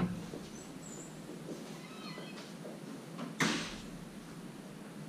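A knock as a hand bumps the camera, a few faint high squeaks around two seconds in, then a short, sharp scraping noise about three and a half seconds in.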